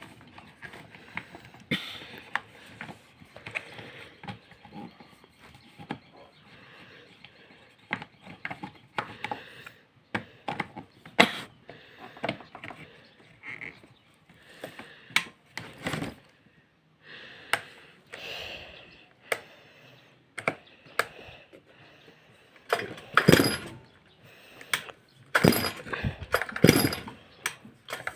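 Stihl MS 382 two-stroke chainsaw being handled and pull-started: scattered clicks and knocks, then a quick run of louder short bursts from the starter cord being yanked over and over in the last few seconds.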